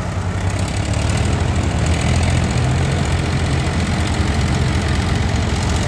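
Several tractors' diesel engines running together under heavy load, pulling a loaded fodder trolley through soft mud, a loud, steady low drone.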